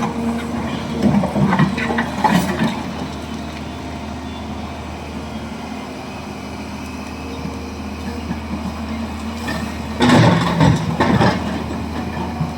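Hyundai 215 excavator's diesel engine running steadily while loading a truck, with louder, rougher spells in the first few seconds and again about ten seconds in as it works.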